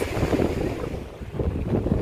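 Wind buffeting the microphone: a low, gusty rumble that eases about a second in and then picks up again.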